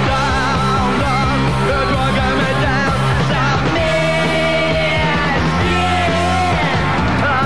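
Punk rock song playing at a steady, loud level, with a singing voice over the band.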